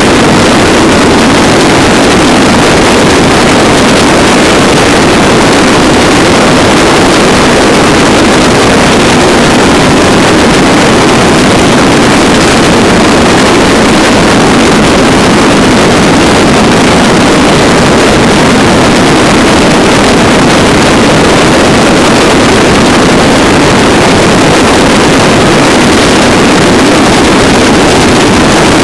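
Motorcycle cruising at highway speed: a loud, steady rush of engine, road and wind noise on the microphone.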